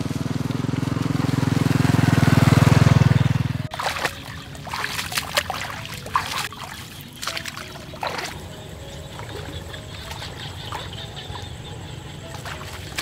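A small motorbike engine running and getting louder as it approaches, cut off suddenly about four seconds in. After that, rustling foliage and scattered snaps and crackles of stems as sesbania flowers are picked among tall plants.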